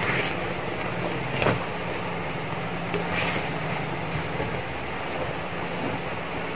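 A sheet of leather rustling and flapping briefly a few times as it is handled and spread flat on a table, over a steady background hum.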